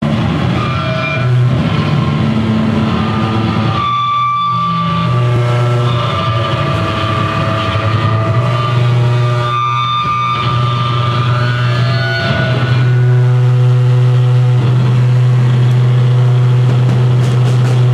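Loud distorted amplifier drone with feedback: heavy held low notes with ringing overtones that shift pitch a few times, and no drumbeat. It steps up louder about two-thirds of the way through.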